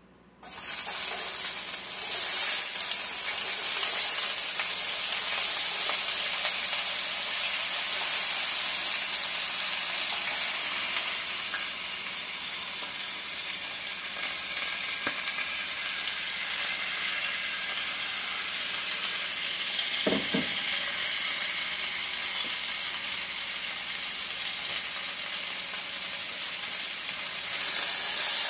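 Cut-up potatoes frying in hot grease in a cast-iron skillet: a loud sizzle that starts suddenly as they hit the pan and goes on steadily. There is one brief knock about twenty seconds in, and the sizzle grows louder again near the end.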